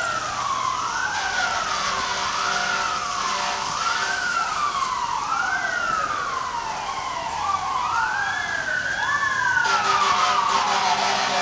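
Fire apparatus siren wailing, each cycle a quick rise in pitch then a longer fall, repeating about every second and a half, over the hiss of traffic on a wet street. The noise grows louder near the end as the apparatus approaches.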